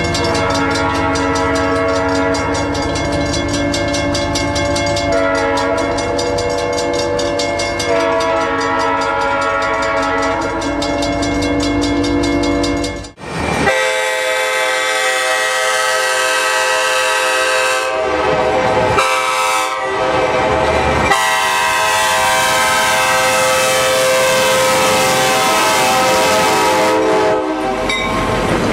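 Locomotive multi-note air horn sounding a loud, held chord. After a sudden cut about 13 s in, a second horn blows long blasts with two short breaks, its chord falling in pitch near the end before it stops.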